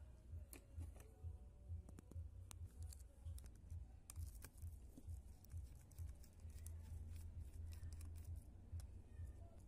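Faint, irregular small clicks and ticks of a screwdriver working the tiny screws and the plastic and metal frame of a Sony compact camera being taken apart, over a low, steady hum.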